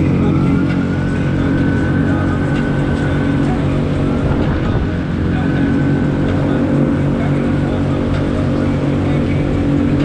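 Outboard motor on a micro skiff running at a steady throttle, with water rushing and spraying along the hull as the boat planes across the flats.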